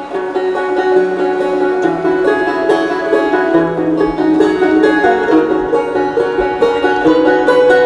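Background music: a quick plucked-string melody over a held bass line that changes note a few times.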